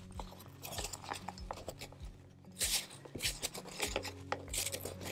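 Fabric rustling and brushing as hands pull it tight over the edge of a wooden canvas frame, in a few short swishes with faint clicks between them.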